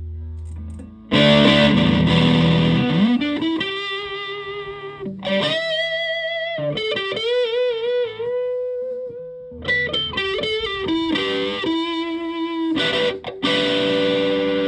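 Electric guitar with humbucker pickups played through a heavily modified Buzzaround fuzz pedal, giving a distorted tone. A loud chord is struck about a second in, followed by a bend up into sustained single notes with wide vibrato, more picked notes, and a final chord left ringing near the end.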